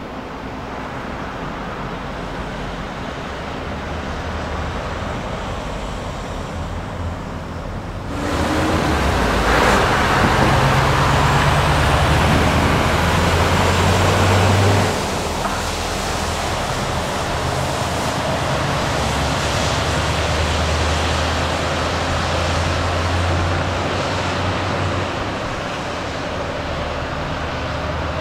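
Heavy diesel dump trucks driving past: a low engine drone with road noise. It gets suddenly much louder about eight seconds in as one passes close, drops back sharply at about fifteen seconds, and a truck engine keeps running after that.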